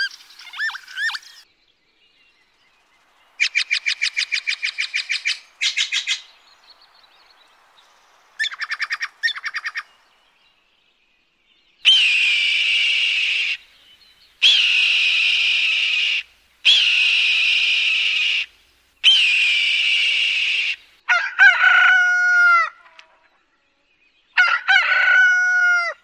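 A run of bird calls. First come two fast chattering series of rapid pulses. Then a bird of prey gives four long, harsh screams, each sliding down in pitch at the start. Near the end a rooster crows twice.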